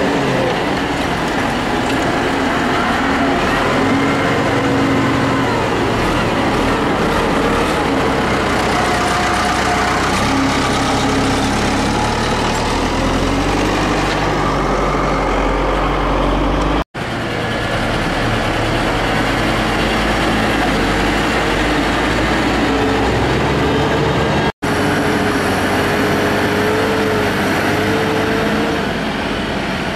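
Diesel tractor engines working on a silage pit, driving over and pushing the grass, the engine note rising and falling with the load. The sound drops out for an instant twice.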